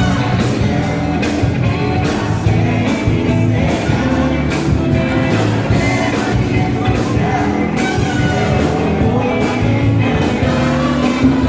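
Live dance band playing a song with a steady drum beat, bass and singing.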